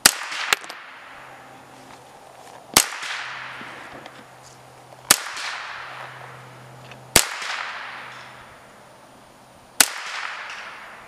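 Ruger 10/22 semi-automatic .22 LR rifle firing five single shots two to three seconds apart, each sharp crack trailing off in a long echo. A fainter crack follows about half a second after the first shot.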